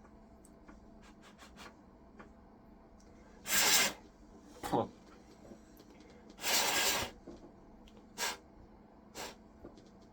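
Keyboard being scrubbed clean: five separate rubbing strokes, two of them longer at under a second each, with a few faint clicks between.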